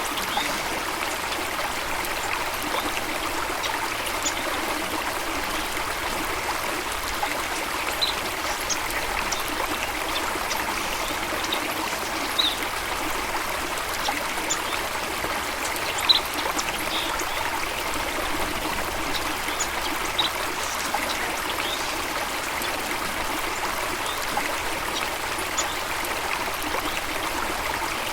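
Running water of a stream, a steady trickling rush, with short high blips scattered through it every second or two.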